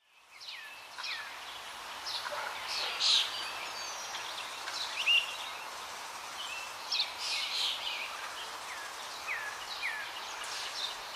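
Small birds chirping and calling: many short chirps and quick downward-sliding whistles over a steady background hiss, fading in over the first second.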